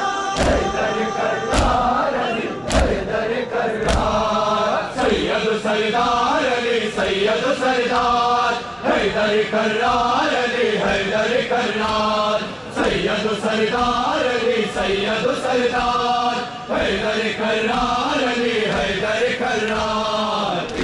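Group of men chanting a Shia noha (mourning lament) together, one phrase repeating about every two seconds, with thumps of matam (hands beating chests) in time.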